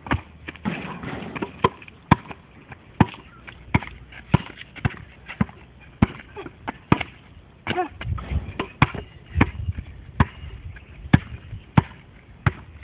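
A basketball being dribbled, sharp bounces coming in an uneven rhythm of about one to two a second.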